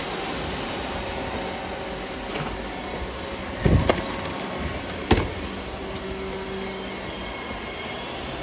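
Many robot vacuums running at once, a steady whir of their motors and brushes. A few sharp knocks come a little past the middle.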